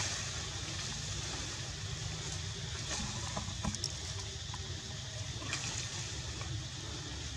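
Steady outdoor background noise: a low rumble and an even hiss, with a few faint clicks about three to four seconds in.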